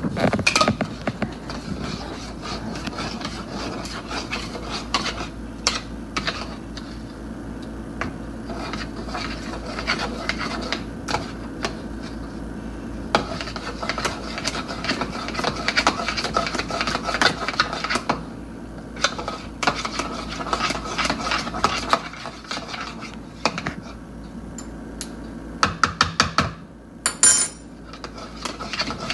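Eggs being beaten with spices in a bowl: a utensil scraping and clinking against the bowl, with a quick run of taps near the end.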